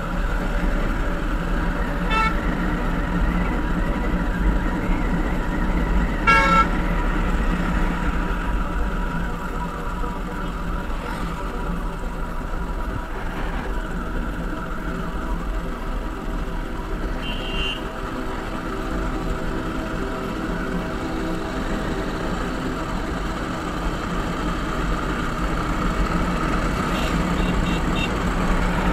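A motorcycle riding in traffic, heard from the bike itself: a steady mix of engine, wind and road noise. Vehicle horns toot briefly about two seconds in and again, loudest, about six seconds in, with fainter short toots later.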